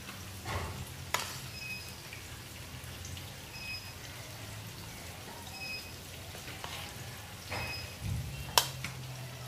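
A metal spoon scraping and tapping on rolled dough as spiced potato filling is spread over it, with a few sharp clicks, the loudest near the end. A steady low hum runs underneath, and a faint short beep repeats about every two seconds.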